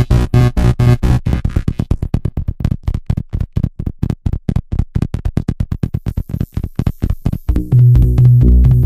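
Electronic dance music: a synthesizer passage chopped into rapid, even stuttering pulses, several a second, then the full beat with heavy bass comes back in near the end.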